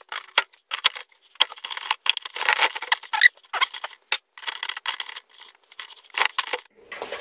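Plastic media baskets of an Aquael Ultramax 2000 canister filter being handled and fitted back together, with ceramic filter media rattling: an irregular run of short clicks, scrapes and clatters.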